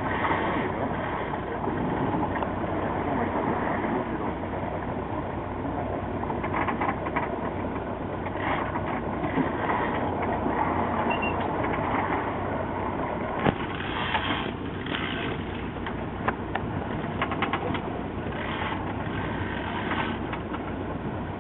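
Fishing boat's engine running steadily, with wind and water noise and a few sharp clicks.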